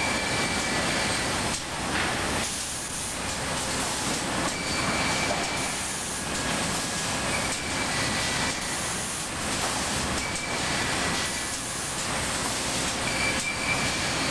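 Advanced Sawmill Machinery edger infeed conveyor running: chains, rollers and boards moving across the transfer deck make a steady mechanical clatter. Brief high-pitched squeals recur every two to three seconds.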